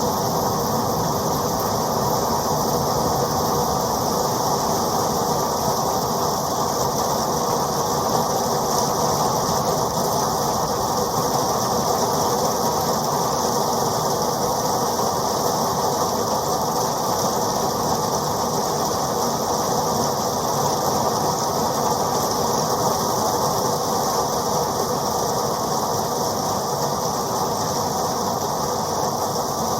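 Steady heavy rain, a dense even hiss of many drops that does not change.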